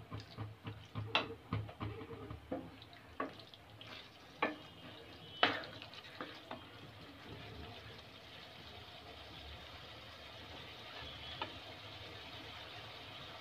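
A spatula stirring a thick vegetable curry in a steel kadai: scattered knocks and scrapes against the pan over the first half, the loudest about halfway through. Under and after them a soft, steady sizzle of the curry cooking in oil.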